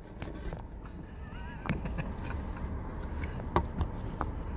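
Car-cabin background: a steady low rumble with a few scattered sharp clicks, the loudest about three and a half seconds in.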